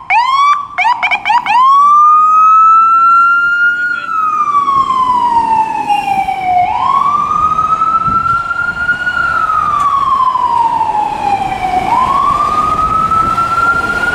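Electronic emergency-vehicle siren: a few quick whoops in the first second and a half, then a slow wail rising and falling, peaking about every five seconds.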